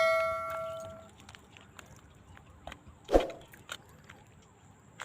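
A struck metal object rings on, its clear tone dying away over the first second. A single dull knock comes about three seconds in.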